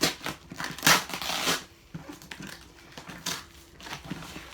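A taped package being torn open by hand: several loud, rough ripping and crackling noises of tape and packaging, the longest about a second in, with shorter rips later on.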